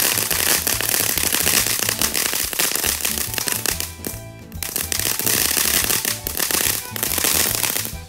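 Ground fountain fireworks spraying sparks with a dense crackling hiss, over background music with a steady bass beat. The hiss breaks off briefly about four seconds in, then carries on.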